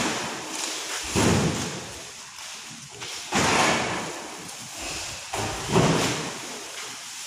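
Heavy sacks of candlenuts dropped onto a truck's bed: three dull thuds about two and a half seconds apart, each with a brief noisy tail.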